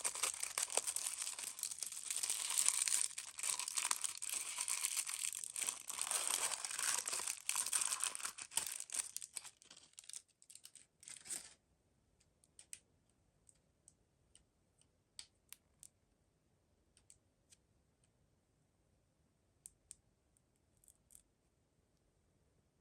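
Mystery toy packaging being torn open and crinkled by hand, a continuous dense crackle for about eleven seconds that stops abruptly. Afterwards only scattered light clicks and ticks.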